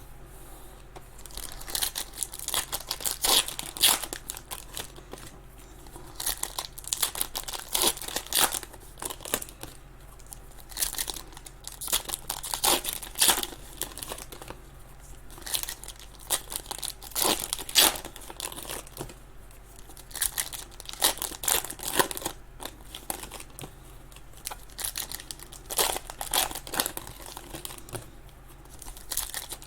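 Trading card pack wrappers being torn open and crinkled, in irregular bursts of crackling with short pauses between.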